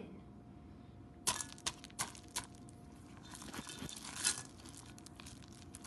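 A silicone spatula stirring chocolate chips into stiff cookie dough in a mixing bowl: a run of sharp clicks and crunchy scrapes starting about a second in, then a rougher stretch of scraping, over a faint steady hum.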